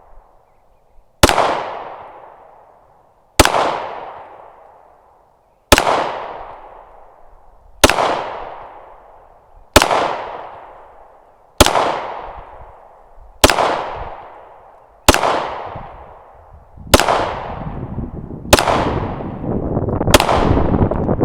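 Stoeger STR9 9mm pistol fired in slow, aimed shots: eleven sharp cracks about two seconds apart, each trailing off in a short echo. A steady rushing noise builds up under the last few shots.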